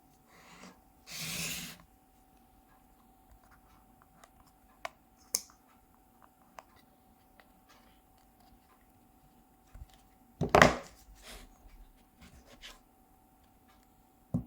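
Hands handling a phone box and its packaging: a rub or slide about a second in, a few light clicks and taps, then a louder bump and rustle about ten and a half seconds in, over a faint steady hum.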